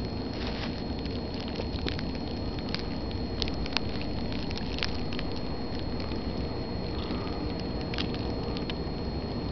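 Steady low rumbling noise with irregular faint crackles and ticks scattered through it, over a faint steady high whine.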